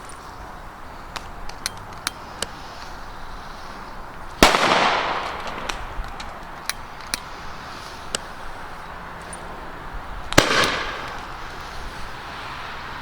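Two firecracker bangs about six seconds apart, each dying away over about a second, with a few faint small pops between them.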